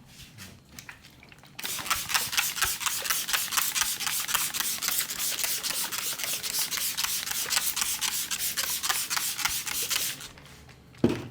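Palms rubbing briskly back and forth over hair and scalp in a head massage, a fast scrubbing rustle. It starts about one and a half seconds in and stops near the end, followed by a short low thump.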